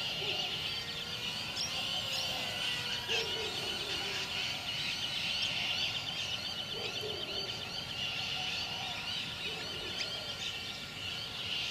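Dense chorus of many small birds chirping continuously, with a few lower, longer calls now and then.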